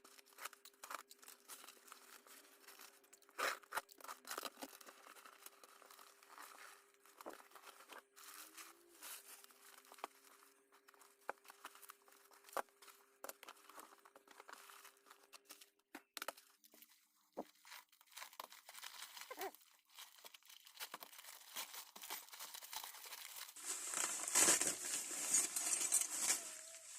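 A parcel being opened by hand: packaging tearing and crinkling, with scattered small clicks and knocks, and a louder stretch of tearing and rustling near the end. A faint steady hum lies under the first half.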